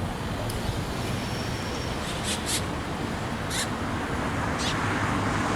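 Steady road-traffic rumble that grows a little louder near the end, with a few short high chirps between about two and four and a half seconds in.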